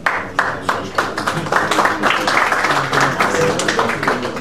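Audience applauding, a dense run of handclaps.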